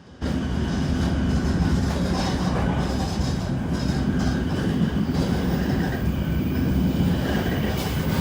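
Shinkansen train running noise heard inside the car: a loud, steady rumble with faint high whining tones over it. The passenger feels it sounds louder than usual and wonders whether it is an abnormal noise.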